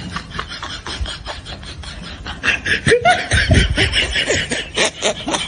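Laughter: a fast run of short laughing bursts that swells and gets louder about two and a half seconds in.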